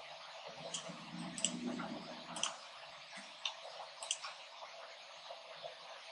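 Computer mouse clicks: about half a dozen short, sharp clicks roughly a second apart, over a faint steady hiss.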